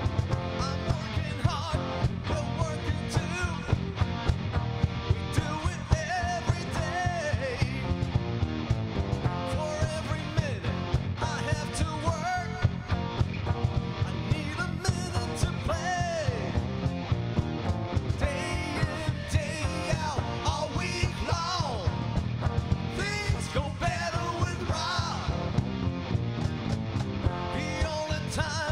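Live rock band playing: electric guitars over bass and drums, with a steady beat.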